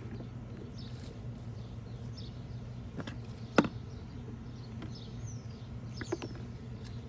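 Hands digging gently through loose soil for potatoes: soft rustling with a few sharp clicks and scrapes, the loudest about three and a half seconds in, over a steady low hum. Faint bird chirps now and then.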